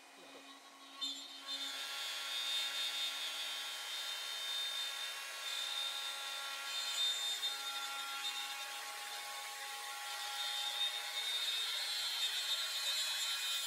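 Plunge router cutting a curved groove in plywood: a steady motor whine with the rasp of the bit in the wood, setting in about a second and a half in.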